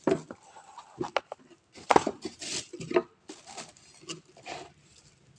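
Irregular knocks, clicks and rustles of objects being handled and set down, with the loudest knock about two seconds in.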